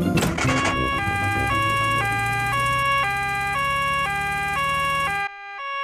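Cartoon two-tone emergency siren going nee-naw, swapping between two pitches about once every half second, the doctor's car coming on a call. A low engine hum runs under it and cuts out about five seconds in while the siren carries on.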